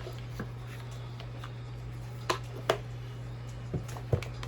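A deck of oracle cards being handled and shuffled by hand, with four sharp card taps in the second half over a steady low hum.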